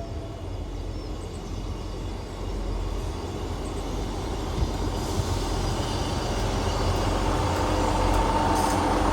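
Train approaching along the station platform, its deep rumble growing steadily louder, with a steady whining tone rising out of it near the end.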